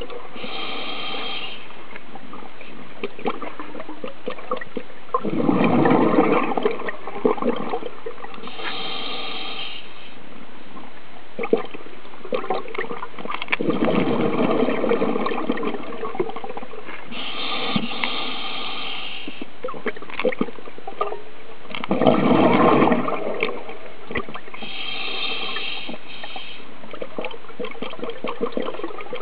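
Scuba diver breathing through a regulator underwater: a hissing inhale, then a louder gurgling rush of exhaled bubbles, taking turns about every eight seconds over a steady background hiss.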